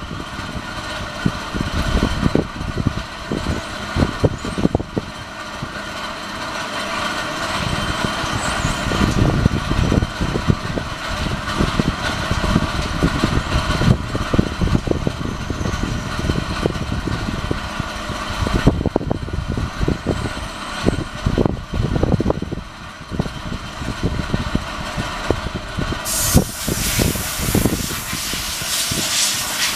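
Team Associated RC10B6.1D electric buggy, driven by a brushless motor, running on a dirt track, with irregular low thumps throughout; a loud hiss cuts in near the end.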